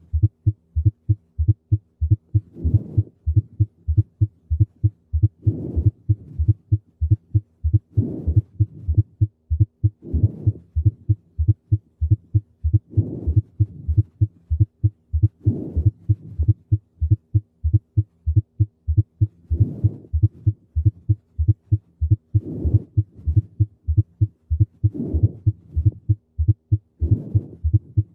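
Heart sounds heard through a stethoscope: a steady, fast run of low dull thumps grouped beat by beat into a gallop rhythm with an added fourth heart sound (S4, an atrial gallop) just before the first sound. About every two and a half seconds a louder, higher swish rises over the beats.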